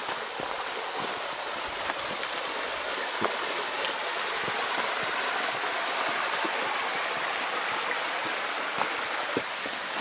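Steady rush of the Ebrón river's flowing water, a little louder through the middle, with a few small scattered knocks.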